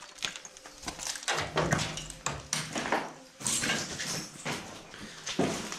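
Irregular scrapes, knocks and footsteps of someone climbing in through a window past a rusted metal shutter into a room with debris on the floor.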